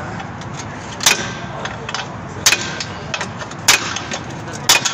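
Hammer blows on the steel front suspension of a crash-damaged Toyota Yaris: four sharp metallic strikes a little over a second apart, each with a brief ring, and lighter tool clicks between them.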